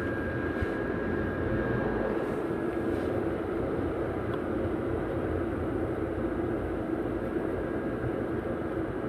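Blower fans of inflatable yard decorations running steadily: an even drone with a thin, steady whine above it.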